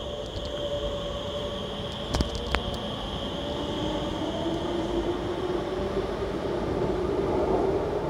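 Alstom Movia R151 metro train pulling out and accelerating, with a whine that rises steadily in pitch as it gathers speed. A few sharp clicks come about two seconds in.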